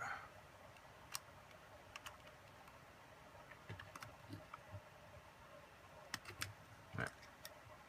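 Faint, scattered clicks and taps of a small precision screwdriver and small parts being worked on a DJI Phantom 3 camera gimbal, about a dozen at irregular intervals.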